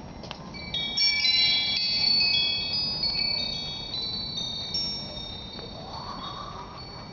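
Metal tube wind chime ringing: many clear high notes struck in quick succession and overlapping, loudest for the first few seconds, then ringing out and fading.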